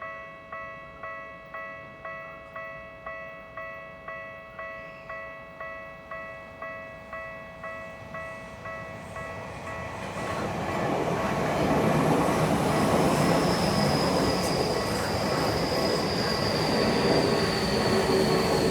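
Japanese level-crossing warning bell ringing with an even electronic ding, nearly two a second. About ten seconds in, an electric train on the Tokyu Toyoko Line comes up and runs through the crossing; its wheel and running noise rises and drowns out the bell, with a high whine slowly falling in pitch.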